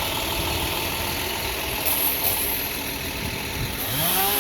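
An engine idling steadily, with a rising pitched glide near the end.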